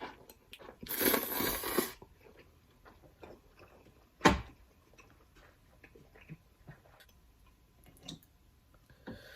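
Close-miked eating sounds: small wet clicks and smacks of chewing, with a loud noisy burst lasting about a second near the start and a single sharp knock about four seconds in.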